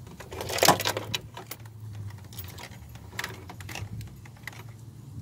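Irregular light clicks and rattles of small hard objects, with a louder clattering rustle about half a second in: someone rummaging for a tool to pull a fuse with.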